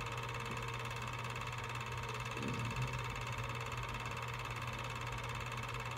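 Home-movie film projector running with a steady mechanical whir and hum.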